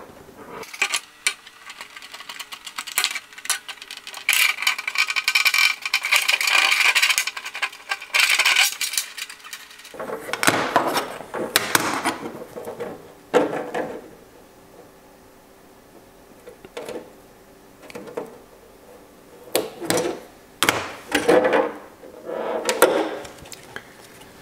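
Curved scissors cutting through a clear polycarbonate RC car body shell: irregular sharp snips and crackles as the stiff plastic is cut and flexed, with a quieter lull a little past halfway.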